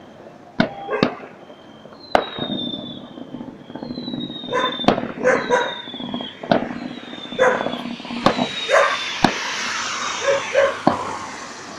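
Fireworks display: a string of sharp bangs, high whistles that fall in pitch, and a crackling hiss in the last few seconds. A dog barks several times.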